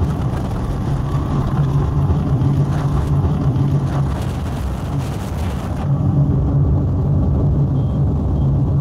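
Mercury 250 hp 3.0-litre EFI V6 two-stroke outboard running at high speed on a racing ski boat, with a steady engine note under rushing wind. The wind hiss lessens about six seconds in.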